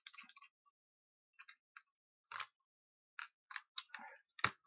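Faint, scattered clicks and ticks of a small screwdriver working screws out of a plastic torch casing, with the sharpest click near the end.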